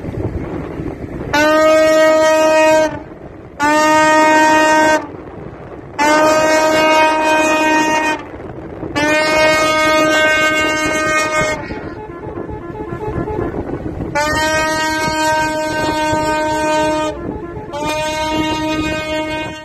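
Tugboat horn sounding six long blasts of one steady pitch, with short pauses between them and a longer pause about halfway through. A low rumble of engines and churning water fills the gaps.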